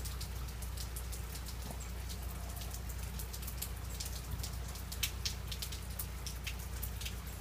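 Freezing rain and drips falling from ice-glazed trees: many irregular sharp ticks of drops and bits of ice striking, over a steady low rumble.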